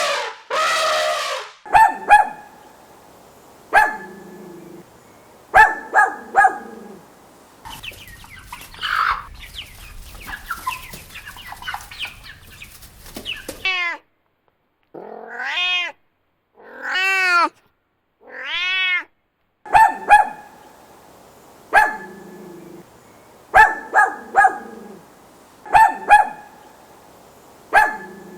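A dog barking in short, sharp barks, with a cat meowing three times in the middle.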